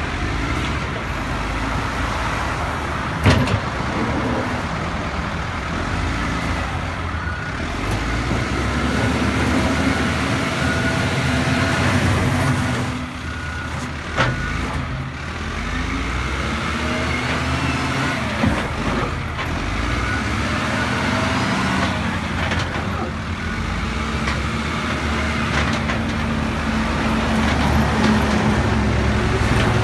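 Caterpillar 924F wheel loader's diesel engine running, its pitch rising and falling as it revs under work, with a few sharp knocks.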